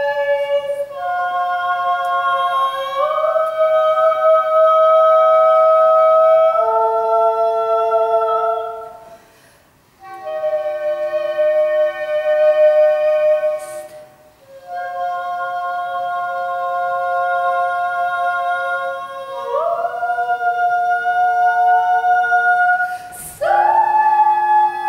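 Soprano voice and English horn performing a contemporary duet: long held notes that overlap, with slow slides between pitches. The music breaks off briefly about nine seconds in and dips again about five seconds later.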